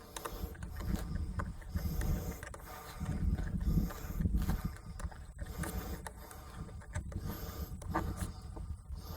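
Wind buffeting the microphone in gusts, with a few light clicks and knocks as paramotor frame and harness parts are handled.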